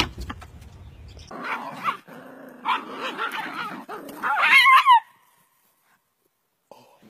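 Dog barking and yipping, ending in a run of loud high-pitched yelps that cut off suddenly.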